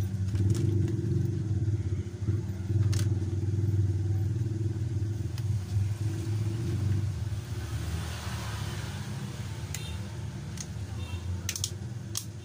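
A steady low mechanical hum, like a motor or engine running, under sharp small clicks from handling phone parts, several of them close together near the end.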